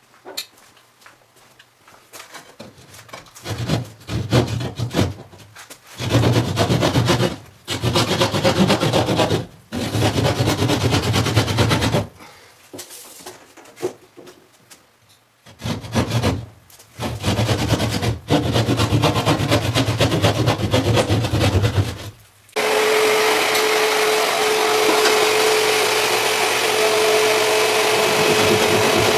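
A saw cutting through ceiling drywall in spurts of a second or two with short pauses. From about three-quarters of the way in it becomes one continuous cut carrying a steady tone.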